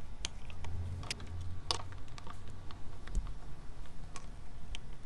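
Irregular small clicks and ticks of a hand screwdriver turning a screw into the plastic cover plate over an e-bike's controller, with the plate knocking lightly as it is handled.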